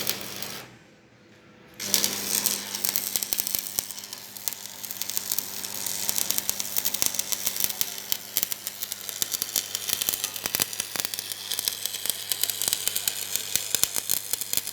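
Stick (arc) welding rod burning down: a steady, dense crackle and spitting from the electrode arc that starts after a short gap about two seconds in, with a steady low hum underneath.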